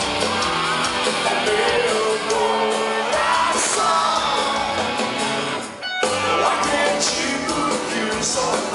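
Rock band playing live in a hall, electric guitar and drums loud, with singing voices over them. The sound dips and breaks off for a moment about six seconds in, then carries on.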